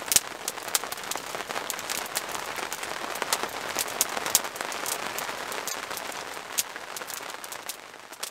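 Steady rain, with many sharp drops pattering close by; it begins to fade out at the very end.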